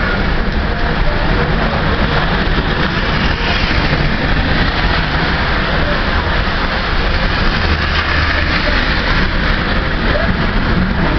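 Heavy thunderstorm rain, a steady rushing noise with a low rumble underneath.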